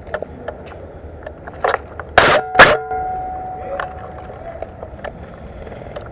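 Two loud, sharp airsoft gun shots about two seconds in, a quarter-second apart, the second followed by a brief metallic ringing, amid scattered small clicks and rustles.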